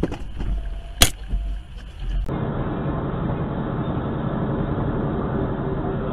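A sharp click about a second in. Then, after an abrupt cut just past two seconds, a steady drone of engine and road noise heard inside a truck's cab.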